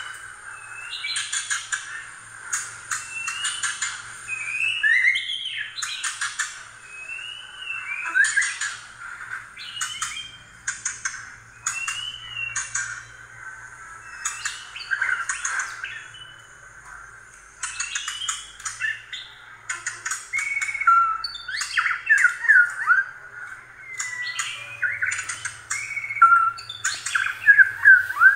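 Mice squeaking over a corn cob, with short chirping squeaks that rise and fall coming every second or so, over a steady hiss and quick clicks of gnawing.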